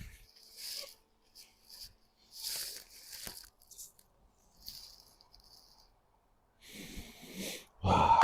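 Short bursts of scraping and rattling from tools and metal engine parts being handled during an engine teardown. They come every second or two, with one sharp click about three seconds in.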